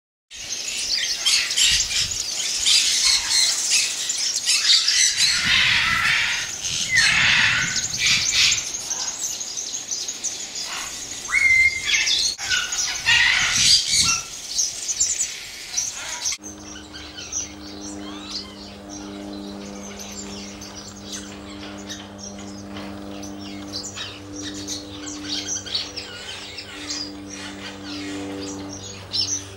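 Many small aviary birds, finches among them, chirping and twittering all at once, loud and dense. About sixteen seconds in the sound changes abruptly to quieter, sparser chirps over a steady low hum.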